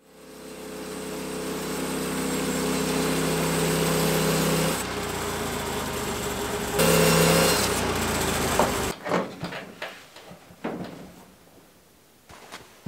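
Norwood portable band sawmill running, its engine droning steadily as the band blade cuts through a white pine log, fading in at the start. The machine sound stops abruptly about nine seconds in, leaving a few light knocks and rustles.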